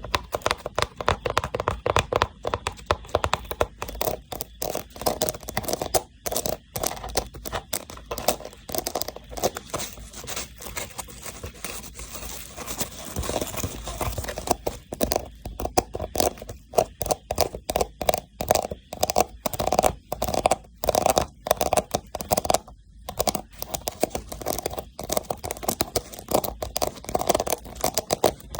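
Rapid tapping and scratching on a woven rattan box, a dense run of small clicks and scrapes that eases off briefly twice.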